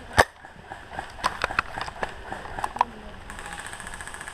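A single sharp shot from an airsoft gun about a quarter of a second in, followed by scattered lighter clicks and knocks.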